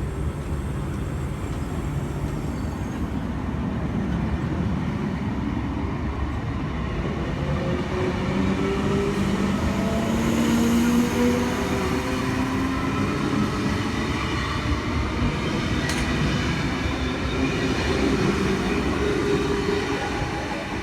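A V-set electric double-deck intercity train rumbling past on the rails, with a motor whine that glides in pitch from about eight seconds in.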